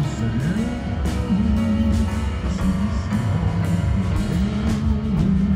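Background music with a moving bass line and a steady drum beat.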